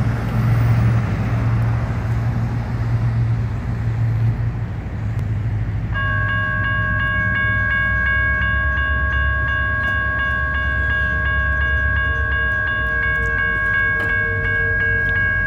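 A low rumble for the first few seconds. About six seconds in, the General Signals electronic bells of a railroad crossing start ringing with a steady, rapidly pulsing tone as the crossing activates to warn of an approaching train.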